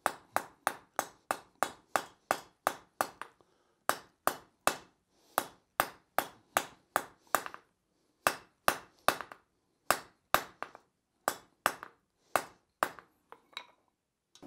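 Blacksmith's hand hammer striking a hot steel rod on an anvil, at about three blows a second in several runs with short pauses. Each blow gives a sharp metallic clang that rings briefly.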